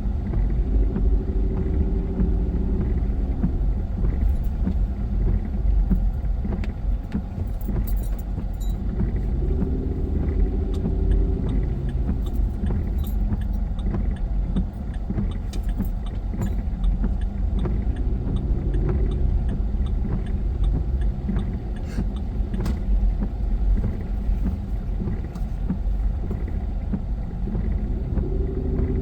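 Car cabin noise while driving: a steady low rumble of engine and tyres on the road, its pitch drifting up and down with speed, with faint light clicks and rattles.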